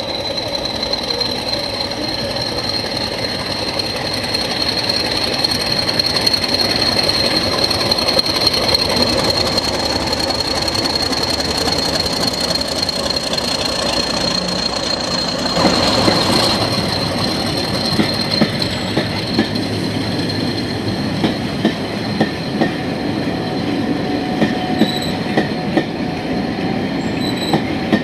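English Electric Class 40 diesel locomotive passing close under power, its high, steady turbocharger whistle carrying until the loco goes by just past halfway. Then the coaches roll past with a regular clickety-clack of wheels over rail joints.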